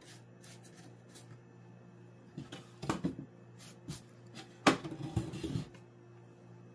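Wooden knocks and clatter as the small wooden stable and tools are handled and set down on a workbench, with one sharp, loud knock a little after the middle, over a faint steady hum.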